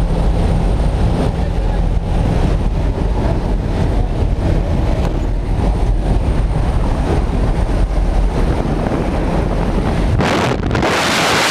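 Small skydiving plane's engine and the wind through its open door, a loud steady rumble. About ten seconds in the rumble drops away and a strong rush of wind on the microphone takes over as the tandem pair exits into freefall.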